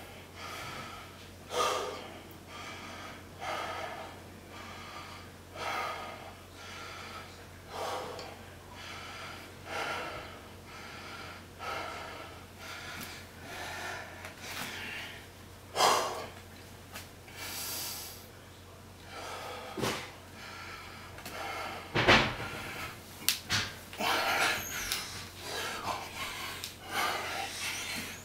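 A man's heavy breathing while doing bodyweight squats, a loud breath about every two seconds in time with the reps, over a steady low hum. A couple of sharp knocks come about three-quarters of the way in.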